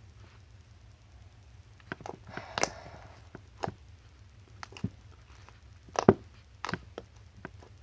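Freshly activated homemade slime being kneaded and stretched by hand, still sticky: scattered sticky clicks and squelches, with a short rustle about two and a half seconds in and a louder snap about six seconds in.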